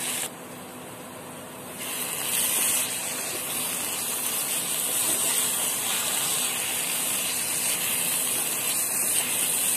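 Walnut halwa mixture, wet with freshly added milk and sugar, bubbling and sizzling in a hot pan as a steady hiss, which drops quieter for about a second and a half shortly after the start.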